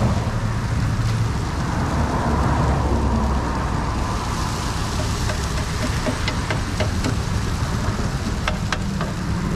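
Bacon and frozen hash browns sizzling on a Blackstone flat-top griddle over a steady low rumble. In the second half a metal spatula clicks and scrapes against the griddle's steel top several times.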